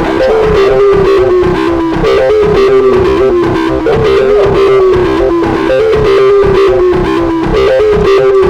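Background music: a repeating melody of descending phrases over a steady beat, led by a guitar-like tone with distortion.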